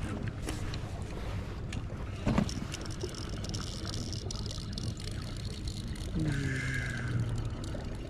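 Steady wind and water noise around a boat on open water, with a single sharp knock about two and a half seconds in. Near the end a short low tone drops in pitch and then holds.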